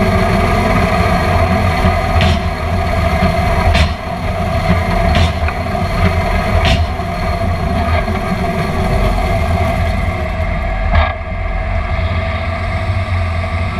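Watson 2500 foundation drilling rig's diesel power unit running steadily under load as the soil-laden auger is lifted and swung, with a few sharp knocks from the rig.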